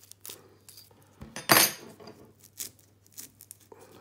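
Hands handling braided rope and a metal splicing fid: scattered rustles and clicks, with one loud, short metallic clatter about a second and a half in.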